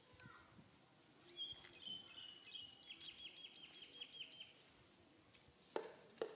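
A small bird calling faintly: a few high whistled notes, then a quick trill of about eight notes a second. Two sharp knocks near the end.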